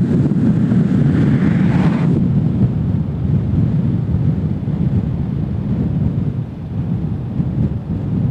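Steady low rumble of a car driving, mixing road noise with wind buffeting the microphone. A brief higher hiss swells about a second in and cuts off sharply just after two seconds.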